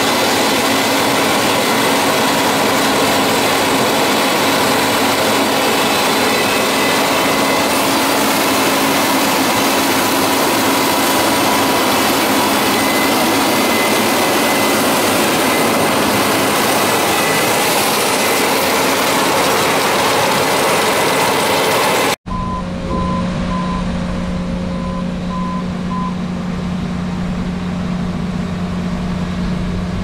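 Case IH Axial-Flow 7010 combine with its 9.0-litre engine running close by: a loud, even rush of machinery with steady whines. About three quarters of the way through it cuts off suddenly to a lower, steady engine hum, with a short run of evenly spaced beeps just after the change.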